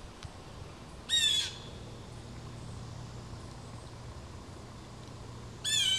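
A bird calling twice: two short calls, each under half a second, about four and a half seconds apart.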